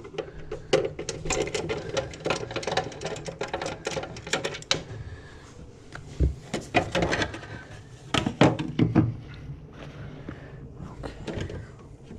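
Rapid clicking and rattling of a hand screwdriver working screws out of a stairlift's plastic cover, in several spells of a few seconds, then plastic knocks as the cover is opened.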